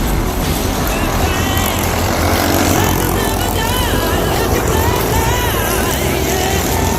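Go-kart engine running at racing speed, its pitch rising and falling through the corners, over a steady rush of wind and tyre noise.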